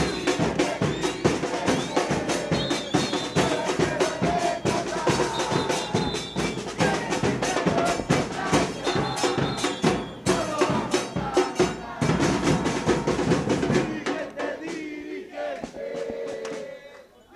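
Drums beaten in a steady, fast rhythm while a crowd of football supporters sings along; about three-quarters of the way through the drumming stops and only the crowd's voices carry on.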